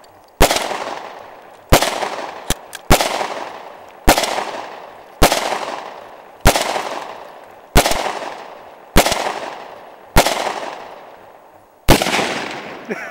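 A wood-stocked bolt-action rifle fires ten shots in quick succession, about one every 1.2 seconds, each shot ringing out with a long echo. A few fainter, sharper cracks fall between the shots, from a second gun in the background.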